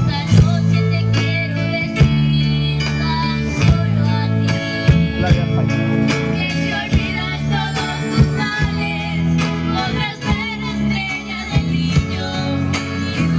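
Music: a band playing a song, with guitar, a melody and a beat of sharp drum-like hits.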